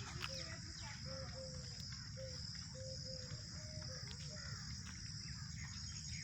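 Steady high-pitched insect buzzing with birds calling over it. One bird repeats a short low note about twice a second for the first two-thirds, and other chirps are scattered through.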